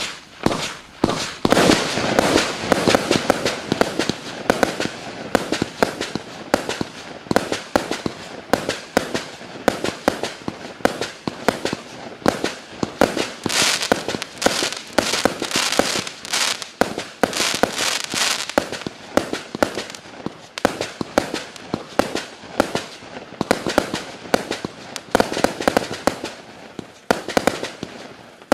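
Klásek Profi Show compact firework cake, 200 shots of 20 mm calibre, firing: a rapid, unbroken string of shots and small aerial bursts, several a second, with louder dense clusters about two seconds in and around the middle.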